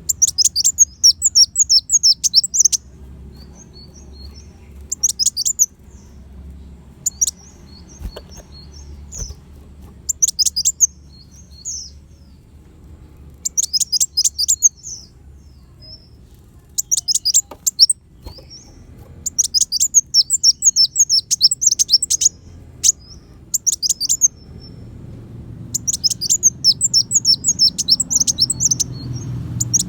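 Kolibri wulung sunbird singing in short bursts of rapid, high-pitched chirping trills, each lasting one to three seconds and repeated every few seconds. A faint low hum runs underneath.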